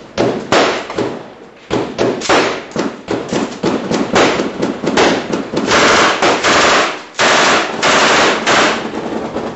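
Bursts of automatic gunfire, one rapid stretch of shots after another, becoming nearly continuous in the second half with a short break about seven seconds in.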